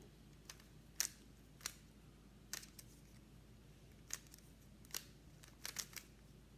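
A 3x3 Rubik's cube being turned by hand: about ten faint, sharp plastic clicks at irregular intervals, a few in quick succession near the end.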